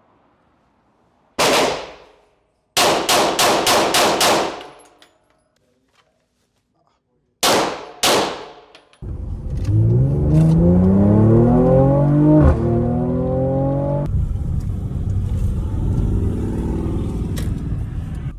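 Gunshots: a single shot, a fast string of about seven, then two more. After them a pitched, engine-like hum climbs for about five seconds and settles into a steady rumble.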